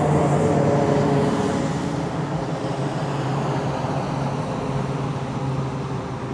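Federal Signal 3T22A three-tone outdoor warning siren sounding its steady Alert tone, a level chord that is loudest in the first couple of seconds and then eases off somewhat.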